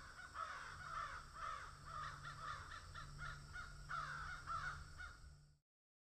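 Crows cawing, many short calls in quick succession over a low steady hum; it cuts off suddenly near the end.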